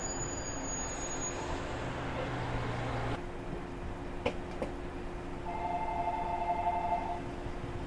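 Shinano Railway 115-series electric train running at a station, a steady rumble that cuts off abruptly about three seconds in. After it, quieter outdoor background with two faint clicks and a short steady two-note tone.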